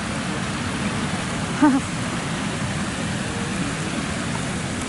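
Steady rushing and splashing of a fountain jet of water spraying up out of a river. About a second and a half in, a short call from a person's voice rises briefly above it.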